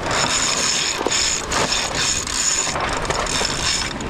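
Sailboat sheet winch clicking as it is cranked, the jib sheet being ground in just after a tack, over rushing wind and water.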